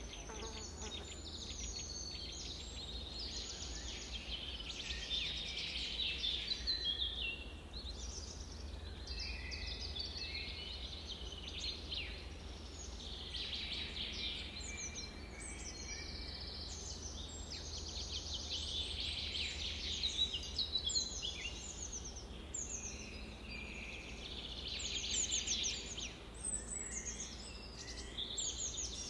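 Several songbirds chirping and trilling together, a dense, unbroken chorus of quick, high, downward-sliding chirps that overlap one another.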